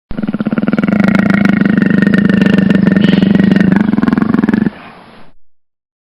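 An animal's single long, buzzy call, held steady for about four and a half seconds before it fades out.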